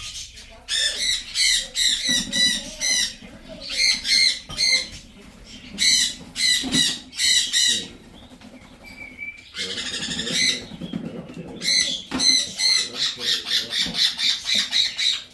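Young blue-and-gold macaws calling in bursts of quick, repeated harsh calls, several a second, with short pauses between bursts.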